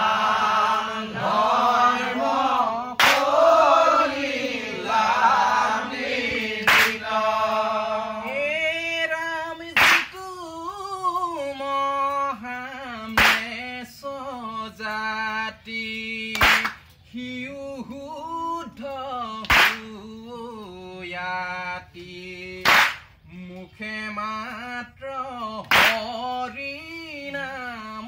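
Assamese Naam Prasanga: men singing a devotional chant together, thinning to fewer voices after about eight seconds. Single sharp handclaps mark the beat about every three seconds and are the loudest sounds.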